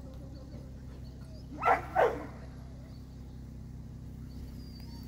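Airedale terrier barking twice in quick succession, two short, loud barks.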